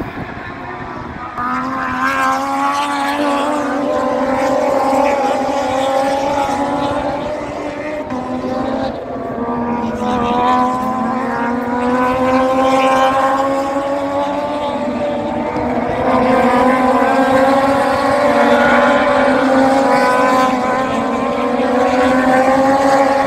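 Race motorcycle engines running at high revs around the circuit: a continuous pitched drone that slowly rises in pitch, dipping briefly about eight seconds in.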